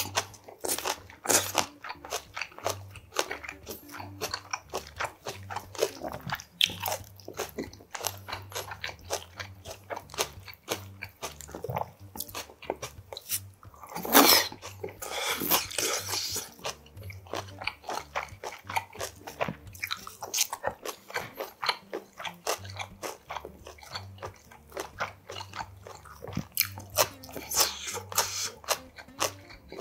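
Close-miked eating sounds: a man chewing and crunching mouthfuls of spicy sea snail salad and somen noodles, with rapid wet clicks throughout. About fourteen seconds in, a longer, louder noisy stretch comes as he brings another mouthful to his lips.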